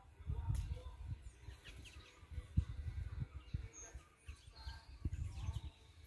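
Faint scattered chirps and short calls of small birds, under low rumbling noise on the microphone that comes and goes.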